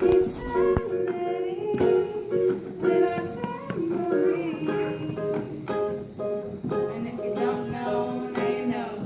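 Chords strummed on an acoustic string instrument in a steady rhythm, with a voice singing along.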